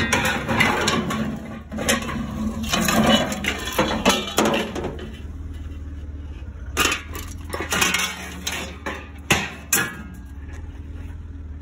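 Scrap metal clattering and clanking as a wheelbarrow load of a brass bucket, shovel and metal frame is handled and thrown onto a trailer of scrap. It is a dense run of metallic rattles for about five seconds, then a few separate sharp bangs.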